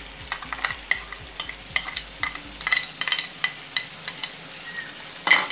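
Chicken pieces frying in butter and oil with a low sizzle, over which a metal spoon clicks and scrapes against the bowl and pan as ground masala paste is spooned in, many quick taps, with a louder knock near the end.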